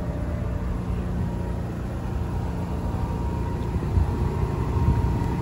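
A steady low engine hum with a rumbling undertone and a faint constant whine.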